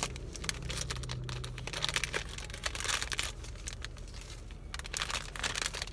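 Plastic wrapper of a packaged bun crinkling as it is handled and torn open.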